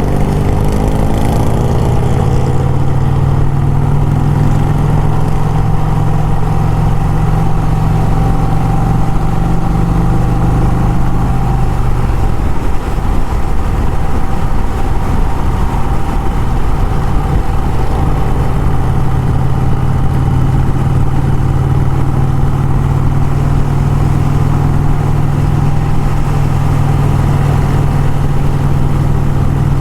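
Motorcycle engine running at road speed, with wind noise over it. The engine note drops back about twelve seconds in and picks up again some six seconds later.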